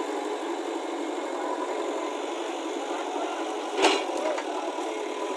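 JCB backhoe loader's diesel engine running steadily while the backhoe arm works. A sharp knock comes nearly four seconds in, with a lighter one just after.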